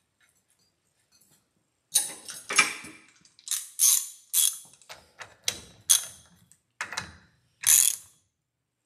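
Hand tools clinking and a socket ratchet clicking in a run of about ten short, sharp rattles, running the propeller nut down onto the outboard's propeller shaft. It starts about two seconds in.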